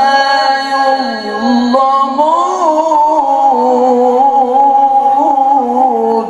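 A man reciting the Qur'an in melodic tilawah style, holding long ornamented notes that waver and turn up and down in pitch with barely a break. It is a single sustained melismatic phrase.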